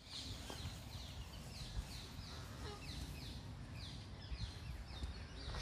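A bird calling in a steady series of short, falling high chirps, about two to three a second, over a low rumble.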